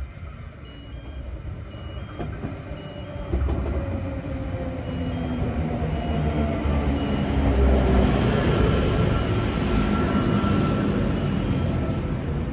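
V set double-deck electric train running into the platform and slowing, its wheels and motors getting louder as it draws level, with a whine that falls in pitch as it slows. A short high electronic beep repeats on and off over it.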